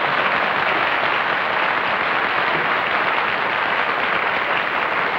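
Studio audience applauding, a dense steady clapping.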